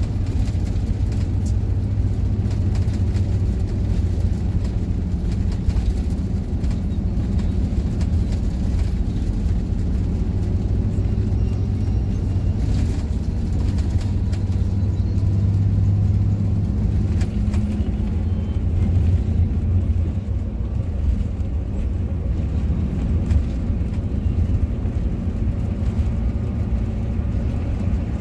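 Intercity coach's engine and tyres running steadily at cruising speed, heard from inside the cabin: a deep, even drone with occasional faint clicks.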